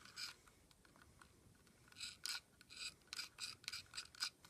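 Several short, faint plastic scrapes and rubs, irregularly spaced, as a piece of toy food is worked against the plastic jaws of a toy robot dinosaur.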